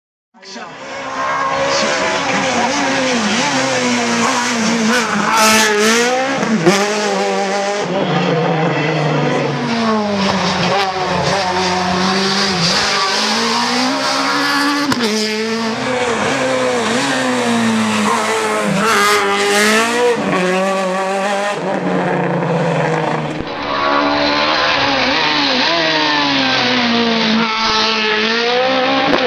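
Super 1600 rally cars' high-revving 1.6-litre four-cylinder engines driven hard, revs climbing and dropping again and again through gear changes. Several shots are cut together, so the sound changes abruptly a few times, and it fades in at the start.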